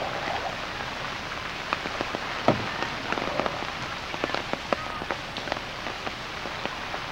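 Steady rain falling on floodwater: a constant hiss, broken by frequent sharp, irregular taps of single drops.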